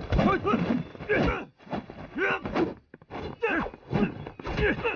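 Hand-to-hand fight: men grunting and shouting with the effort of each strike, cut with dull thuds of blows landing.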